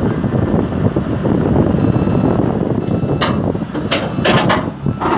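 Komatsu crawler excavator's diesel engine running under load as the machine tracks up onto a lowbed trailer, its steel tracks grinding over the deck. A few short, sharp noises stand out about three to four and a half seconds in.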